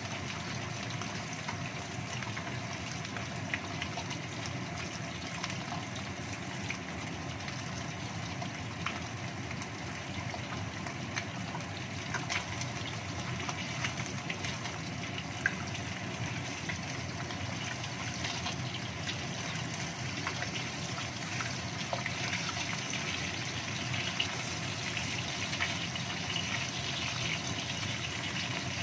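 Salmon pieces frying in shallow oil in a non-stick wok: a steady sizzle with a few sharp clicks. In the second half a wooden spatula turns the pieces in the pan.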